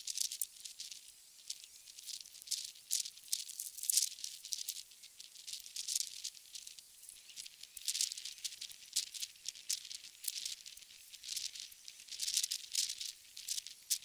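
Irregular dry crackling and rustling, high-pitched, coming in uneven clusters of quick clicks.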